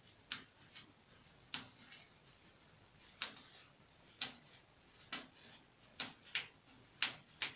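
Plastic highlighting cap crinkling under the hands in short, sharp bursts, roughly one a second, as it is worked over the head.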